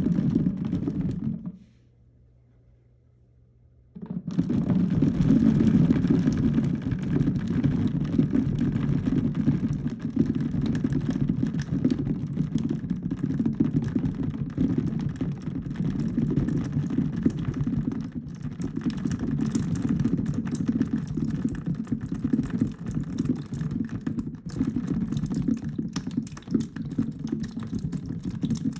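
A mass of small balls or beads rattling and tumbling against each other in a steady dense clatter of tiny clicks. It breaks off into near silence for about two seconds early on, then resumes.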